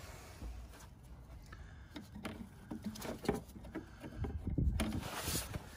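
Handling noise in a van's engine bay: rustling and light knocks as a gloved hand brushes along rubber hoses and the phone is moved around, growing louder with a few low thumps about four and a half seconds in.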